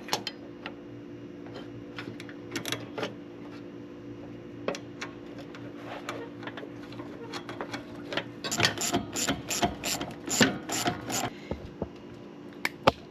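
Metal clicks and taps of hand tools and a battery cable terminal being worked onto a repaired positive cable end, turning into a quick run of clicks about eight seconds in. A steady low hum runs underneath.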